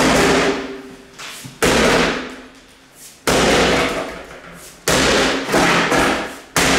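A sledgehammer striking a small metal wall safe: five heavy blows about one and a half seconds apart, each ringing out and fading before the next.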